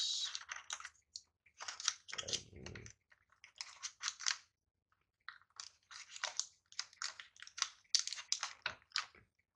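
Packaging crinkling and rustling in quick, irregular bursts as hands dig through a phone's accessory box and lift out the charger.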